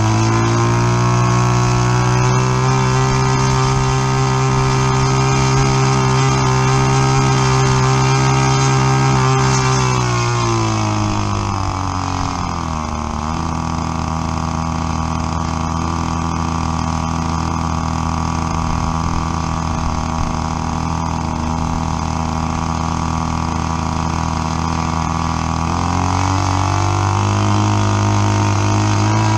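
A new model airplane engine running in on the ground during its break-in. It runs steadily at a higher speed, is throttled down about a third of the way in, holds a lower, steady speed, then is throttled back up near the end.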